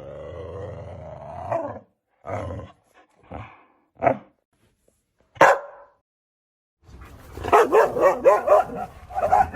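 Siberian husky vocalizing: a drawn-out call, then five short separate barks. After a brief pause comes a fast run of barks and yips.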